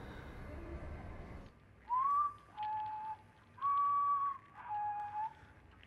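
A man whistling a slow tune of clear held notes, alternating between a higher and a lower pitch, the first sliding up into place. Four notes begin about two seconds in, after a low background rumble cuts off.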